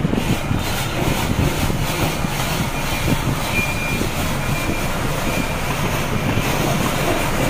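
Ice shaving machine running, its blade grinding a block of ice held down by the screw press: a steady, loud grinding noise.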